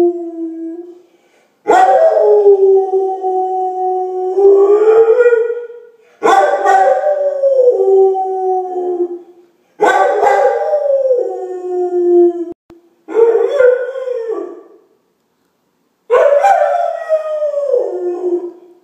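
Rhodesian Ridgeback howling: the end of one howl, then five long howls of a few seconds each with short pauses between, most sliding down in pitch as they end.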